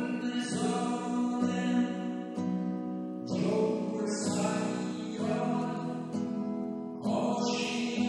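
A Persian song sung as lyrics over a steady sustained accompaniment. There are three vocal phrases, the second beginning about three seconds in and the third near the end.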